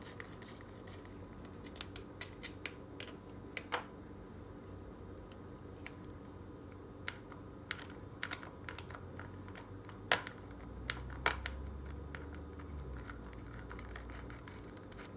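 Irregular light clicks and ticks of a Phillips screwdriver working screws out of a large-scale RC truck.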